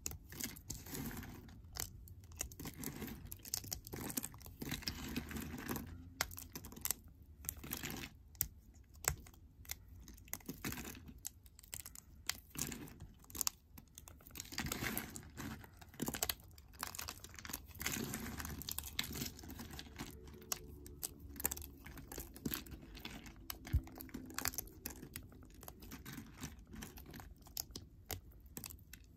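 Dry green soap crumbling and snapping between the fingers: a dense, irregular run of small crisp crunches and clicks.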